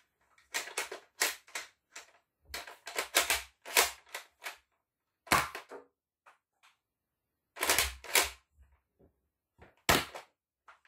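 Zuru X-Shot Regenerator foam-dart blaster being primed and fired: a run of sharp plastic clacks and snaps, several in quick pairs.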